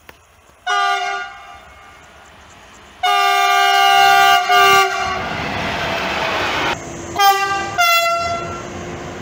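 Electric locomotive horns. One gives a short blast, then a long blast followed by a short one as a freight train runs past with a rumbling wheel noise. Two more short horn blasts come near the end.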